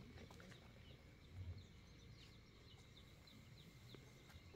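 Near silence: quiet rural ambience with faint, short bird chirps scattered through it.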